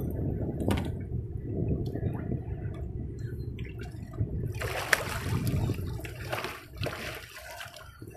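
Seawater sloshing and splashing against a boat's side as a landing net is worked through it, with a few sharper splashes, the biggest about five seconds in.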